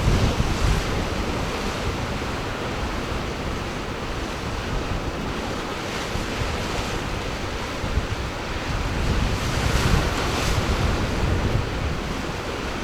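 Ocean surf washing and breaking, with wind rumbling on the microphone. The wash swells louder a few times.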